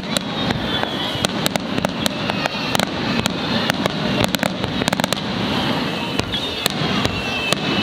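Fireworks display: aerial shells bursting overhead, with many irregular sharp bangs and cracks over a steady background of noise.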